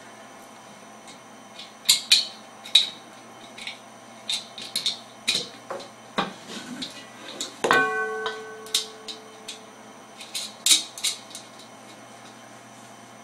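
Screws and nuts clicking and clinking against the smoker's metal lid and handle as they are fitted by hand, in a string of light knocks. About eight seconds in, a harder knock sets the metal lid ringing briefly.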